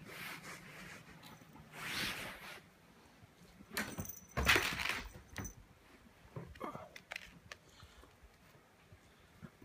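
Soft rustling and scuffling in a few short bursts, the loudest about two seconds in and again near the middle, as a kitten plays with a small toy on futon bedding.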